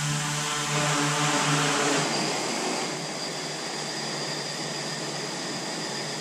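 Sentinel drone's propellers buzzing with a steady pitch as it descends and sets down. About two seconds in the pitched buzz drops away, leaving a steady whirr with a thin high whine as the rotors keep turning on the ground.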